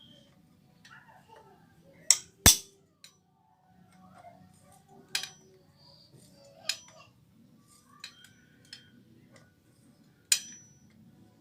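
Sharp metallic clinks of hand tools and motorcycle parts being handled, about seven scattered strikes; the loudest comes about two and a half seconds in.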